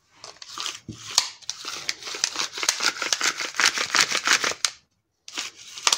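Rapid run of clicking and rasping as the Husqvarna 444 SE's freshly rewound and greased recoil starter is worked by hand. It stops briefly near the end, then a short burst follows.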